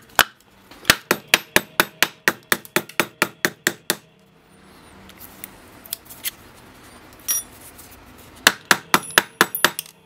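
Brass padlock knocked again and again against a block of wood to shake the old pins and springs out of its drilled-out chambers. There is a quick run of sharp knocks, about four or five a second for some three seconds, then a few light clicks, then a second short run of knocks near the end.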